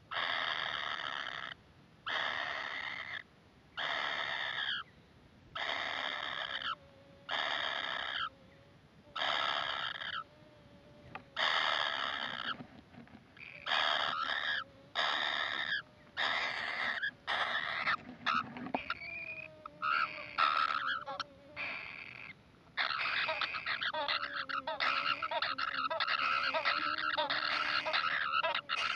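Kingfisher nestlings begging: seven long, harsh calls of about a second each, evenly spaced, then quicker broken calls from about 13 seconds in and an unbroken chorus from about 23 seconds in, as an adult arrives with food.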